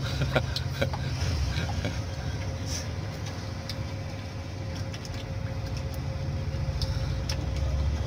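Steady low rumble of an engine running, with scattered light metallic clicks and knocks from hand work on a spin-on oil filter.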